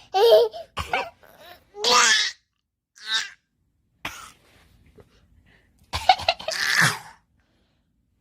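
Playful pretend coughs and sneezes ('achoo') traded between a mother and a young child, mixed with laughter. They come as a string of short bursts with pauses between, and a longer run about three quarters of the way through.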